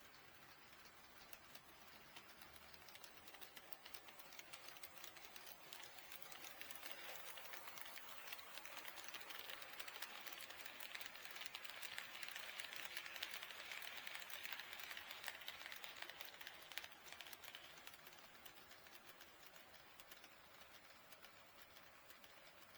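HO scale model train running past on KATO Unitrack, its wheels clicking rapidly over the rails with a light whir. It grows louder, is loudest about halfway through, then fades away as it passes.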